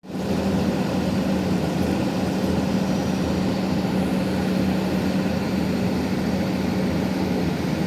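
Heavy diesel engine of an XCMG horizontal directional drilling rig running steadily at constant speed, with a strong low hum and no change in pitch.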